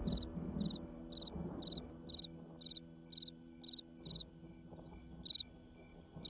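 Crickets chirping, about two chirps a second, with a break of a couple of seconds near the middle, under the fading tail of a low music chord.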